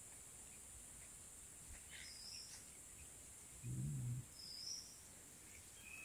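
Faint rural pond-side ambience: a steady high-pitched insect drone with a few short bird chirps. A brief low voice-like hum comes a little past halfway.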